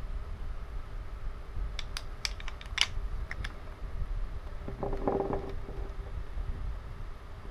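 Wooden toy train engines being handled: a quick run of small sharp clicks as their wheels and bodies knock together in the hands, then a brief squeak about five seconds in.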